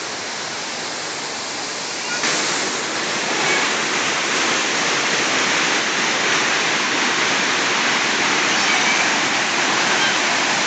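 Waterfall: a steady rush of falling water that gets louder about two seconds in.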